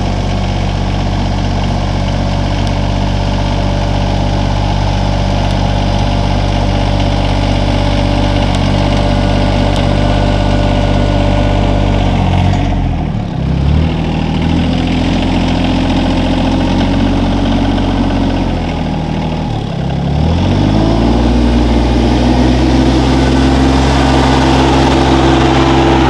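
Compact tractor engine running steadily while its front-end loader scoops and carries sawdust. The engine speed dips briefly about halfway through and again about three-quarters of the way through, each time picking back up.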